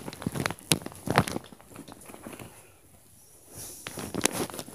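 Irregular sharp knocks and clicks in two clusters, one in the first second or so and another near the end, with a quieter stretch between.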